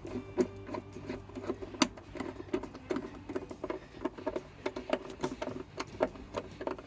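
Irregular clicks and light taps, several a second, of hand tools and metal parts being worked around a car battery as it is fitted.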